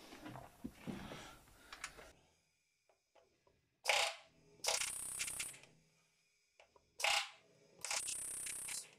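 Air-powered riveting tool setting rivets into the aluminium hull along a Kazanka 5M4 motorboat's new stem: two bursts about three seconds apart, each a short loud blast followed by about a second of high hissing.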